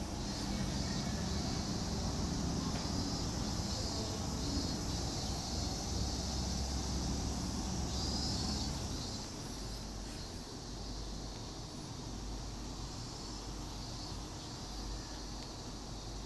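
Steady outdoor ambience: a low rumble with a high hiss over it, the rumble easing about nine or ten seconds in.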